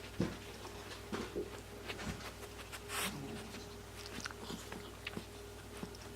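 Yorkshire terrier snuffling through a fleece snuffle mat for treats: short sniffs, with scattered light clicks and rustles as it noses and nibbles.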